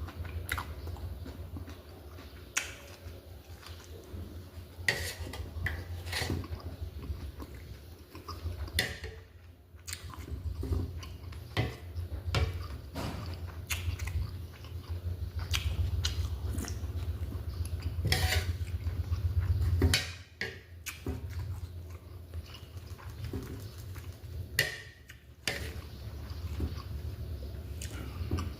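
Close-up eating sounds: chewing and biting, with a spoon or other cutlery clinking against dishes many times.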